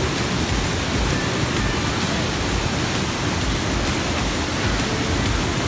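Curug Seribu waterfall, about 100 m high, falling into its pool: a steady, even rush of water.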